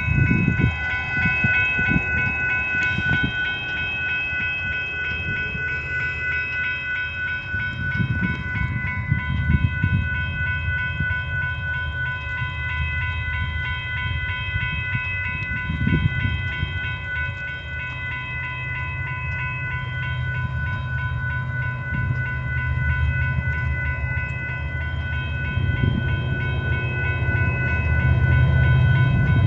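Railroad grade-crossing warning bell ringing steadily, a set of high ringing tones that keep going. Beneath it a low rumble from the approaching freight train grows louder near the end.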